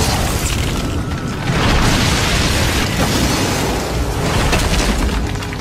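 Anime battle sound effects: a heavy, continuous rumbling boom of a massive energy-warrior strike smashing the ground, with crashing debris. It swells again about a second and a half in.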